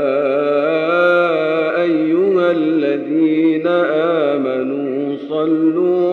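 A male voice chanting an unaccompanied Islamic ibtihal: a long, ornamented melismatic line with the pitch winding up and down, broken briefly about three seconds in.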